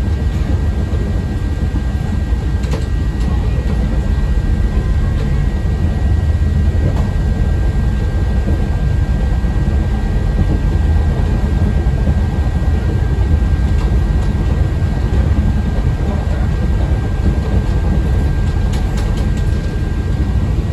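A CTA 5000-series rapid transit car running at speed, heard from inside the car: a steady low rumble of wheels on rail, with a faint steady high tone above it.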